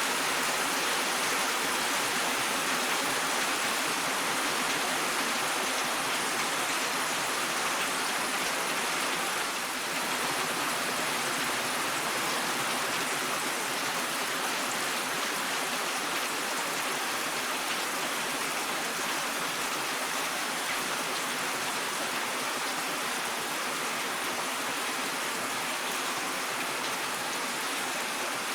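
Steady rain falling, a dense even hiss of drops without distinct individual patters or thunder.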